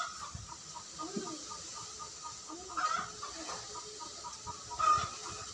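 Chickens clucking, with short calls about three seconds in and again, louder, about five seconds in, over a faint steady background.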